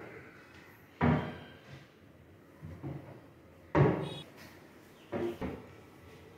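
Laminated lift-up wall-cabinet flap doors on hydraulic struts being pulled down and shut: a sharp knock about a second in, a louder one near four seconds, and lighter knocks around five seconds.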